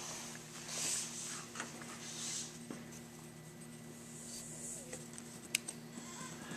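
Quiet handling of carburetor parts: a few soft rustles as the gasket and venturi are handled, and one sharp small click near the end, over a faint steady hum.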